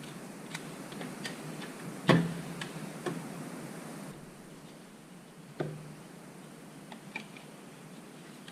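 Scattered light clicks and two sharper knocks, the first about two seconds in and the loudest, over a faint hiss: small hard objects being handled.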